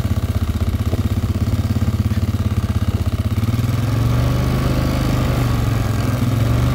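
Polaris ATV engine running at low speed as it rolls along, a steady, pulsing low drone that picks up slightly about four seconds in.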